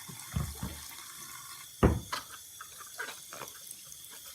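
Warm tap water running over a rubber RC car tire in a sink, rinsing off WD-40. A few hollow knocks break in, the loudest just under two seconds in.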